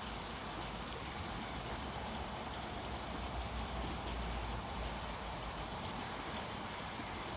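Steady outdoor background noise, an even hiss with a low rumble that swells about three to five seconds in, and a few faint high ticks.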